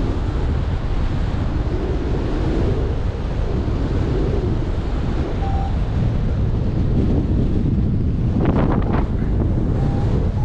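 Steady wind rushing over the microphone of a paraglider pilot in flight, with a brief burst of rustling about eight and a half seconds in.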